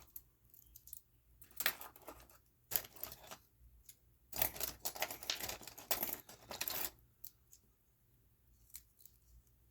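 Handling small watch parts and tools at a workbench: a few light clicks and taps, with stretches of rustling and scraping, the longest about four to seven seconds in.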